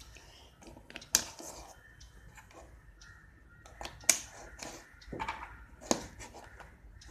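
Plastic Rubik's cube pieces clicking as they are fitted back into the cube during reassembly. Sharp clicks come a little over a second in and about four seconds in, then two more about a second apart, with lighter ticks between.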